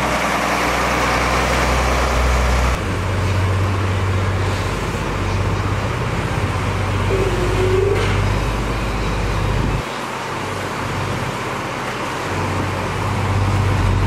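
Engines of heavy road-construction machinery running steadily with a deep hum. The hum changes abruptly about three seconds in and again about ten seconds in.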